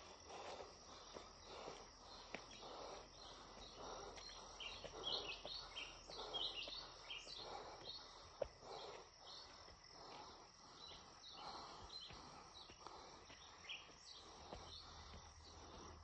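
Footsteps on a dirt forest trail at a steady walking pace, roughly one and a half steps a second. Behind them is a faint constant high hiss of insects.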